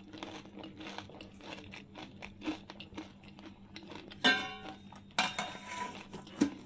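A person biting into and chewing a dahi puri, the crisp fried puri shell crunching in scattered clicks, with a short voiced sound about four seconds in.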